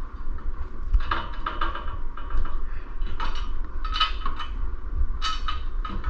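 Small steel hardware clinking and scraping against the steel frame as bolts, washers and nuts are handled and fitted, in several short bursts of light metallic clinks about a second apart, over a low rumble.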